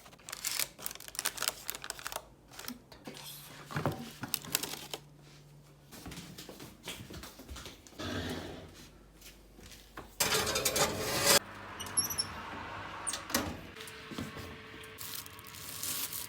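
Kitchen clatter: dishes, pots and utensils clinking and knocking, with a short loud rushing noise about ten seconds in and a steady hum starting near the end.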